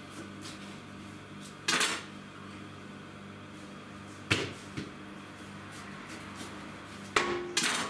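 Butcher's knife and beef on a cutting board: a few short knocks and scrapes as short-rib slabs are cut and handled, over a steady low hum.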